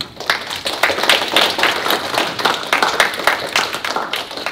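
A roomful of children applauding, many hands clapping together, dying away near the end.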